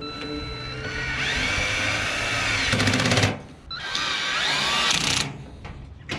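Cordless drill driving fasteners into a gas grill's frame in two runs, its motor whine rising and falling in pitch as the trigger is squeezed and eased, the second run shorter.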